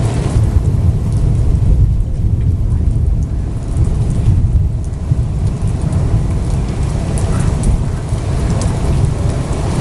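Thunderstorm with rain: a loud, steady low rumble with faint ticks of raindrops over it.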